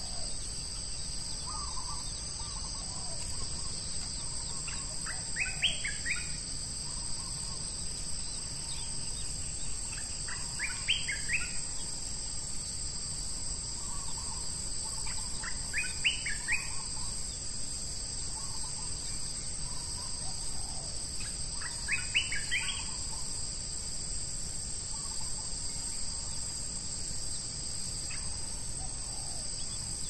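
Bar-winged prinia calls: four short bursts of quick notes, one every five to six seconds. A steady high drone of insects runs underneath.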